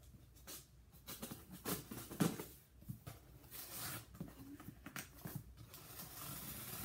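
Scissors cutting through the tape on a cardboard box, heard as scattered short scrapes and clicks on the cardboard.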